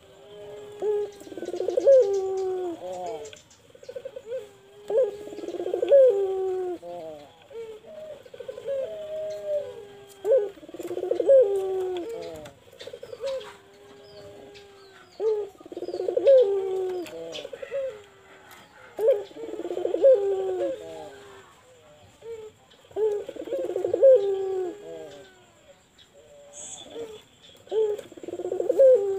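Ringneck dove (puter) cooing in a repeated rolling phrase, about one phrase every four seconds.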